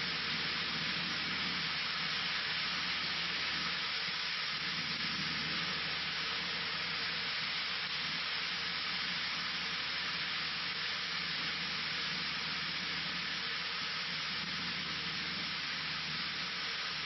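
Steady cabin noise of a Cessna 152 in flight: an even hiss of engine and airflow with a faint low drone from its four-cylinder Lycoming engine underneath.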